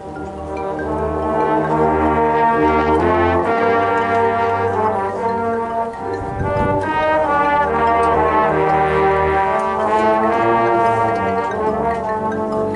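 Marching band brass playing loud, held chords that change every second or two, with the low brass strong. One low thud about six and a half seconds in.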